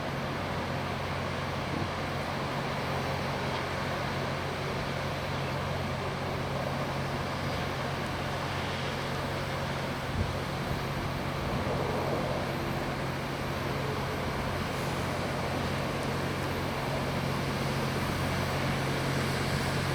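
Loram rail grinder working along the track: a steady mechanical drone of its engines with the rasp of the grinding stones on the rail, and one brief knock about halfway through.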